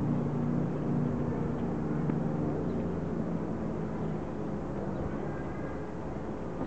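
A steady low mechanical drone over outdoor background noise, easing somewhat after about three seconds.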